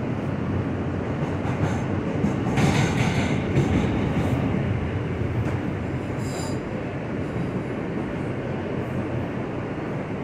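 R160 subway car running on the rails, heard from inside the car: a steady rumble of wheels and car body, louder for about a second around three seconds in, with a brief high wheel squeal about six seconds in.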